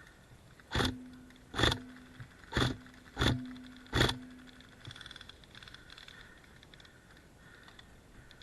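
Airsoft gun firing five single shots in quick succession, a sharp crack a little under a second apart, starting about a second in.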